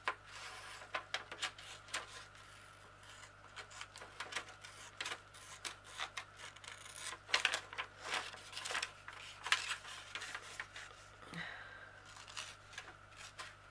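Scissors snipping through paper, an irregular run of short cuts with paper rustling between them, as small paper labels are cut out by hand.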